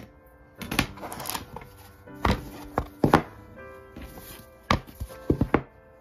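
Cardboard book cover boards and a steel ruler being handled on a cutting mat: a short scrape, then a string of sharp knocks as the boards are set down and stacked. Soft background music plays underneath.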